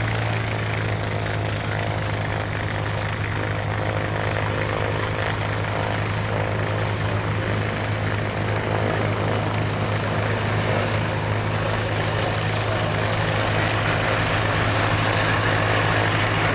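Continental O-200 air-cooled flat-four engine of a Pietenpol Air Camper, droning steadily with its propeller as the plane flies overhead, growing a little louder in the last few seconds.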